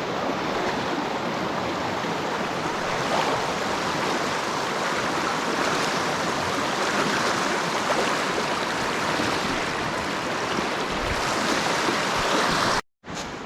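Creek water rushing, a steady loud wash close by; it cuts off suddenly near the end.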